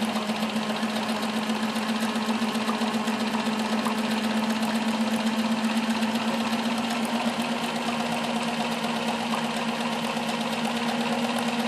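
A late-1950s Bernina 610 sewing machine running steadily at sewing speed while stitching a fine zigzag: a steady motor hum under rapid, even ticking from the needle mechanism.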